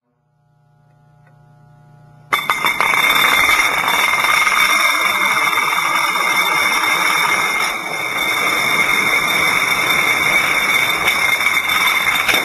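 A long row of steel stage counterweights toppling one after another like dominoes: a sudden, continuous loud metallic clatter of rapid impacts with a steady high ringing, starting about two seconds in and stopping abruptly near the end. A faint low hum comes before it.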